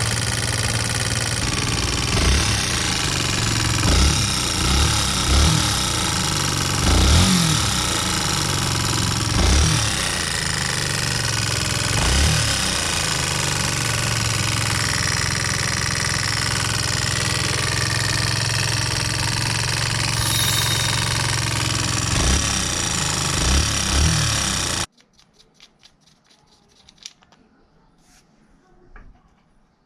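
Yamaha Serow 225's air-cooled single-cylinder four-stroke engine running with a loud abnormal knocking clatter and irregular heavier thumps. The engine has been damaged by oil starvation: a Serow 250 oil filter fitted by mistake blocked the small oil hole. It is shut off abruptly about 25 seconds in, leaving only a few faint clicks.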